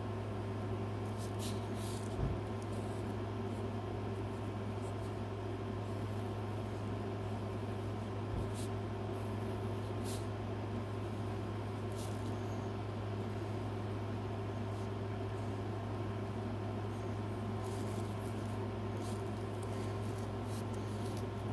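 A steady low machine hum with a band of hiss under it, unchanging throughout, with a few faint light clicks on top.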